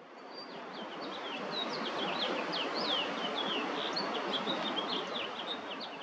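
Songbirds chirping in a rapid run of short, high, mostly falling notes over a steady background rumble of city noise.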